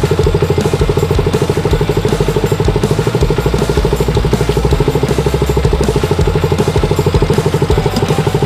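KTM Duke 200's single-cylinder four-stroke engine idling steadily, a rapid even beat.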